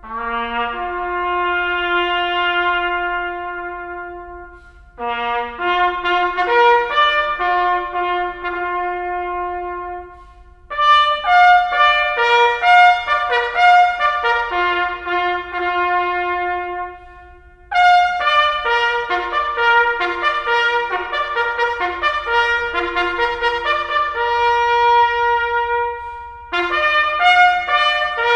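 Brass music led by a trumpet, playing slow melodic phrases with long held notes, broken by short pauses a few times.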